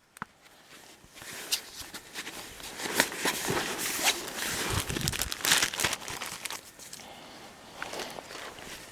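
Dry melaleuca paperbark crinkling and tearing in irregular rustling strokes as it is handled for fire tinder, busiest in the middle of the stretch and quieter near the end.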